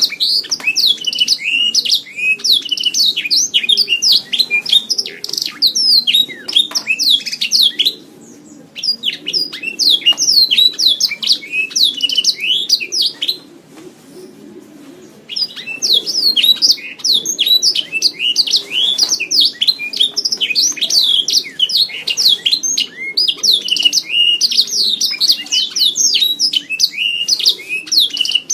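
Domestic canary singing long, rapid rolling song phrases of fast trills and chirps, with two short pauses between phrases.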